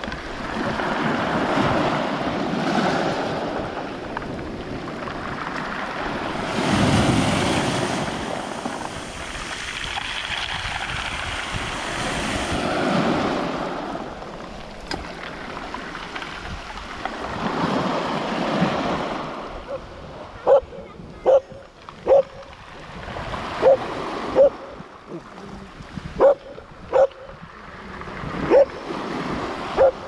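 Small waves breaking and washing over a pebble beach in surges. In the last third, a dog barks about nine times in short, sharp barks spaced irregularly, over the quieter lapping of the water.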